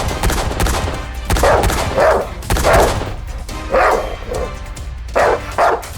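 A dog barking repeatedly in short barks over background music.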